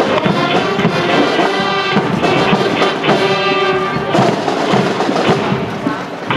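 School marching band playing: brass holding sustained notes over a steady drum beat.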